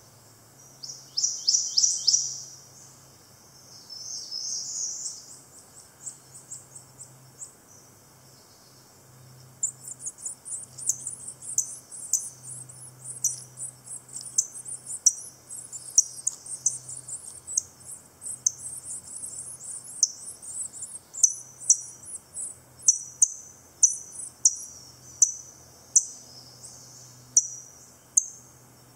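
Prothonotary Warbler vocalizing at its nest: a loud ringing song of repeated falling sweet notes about a second in and a softer phrase soon after. From about a third of the way through comes high thin chittering, which gives way to a steady run of sharp chip notes.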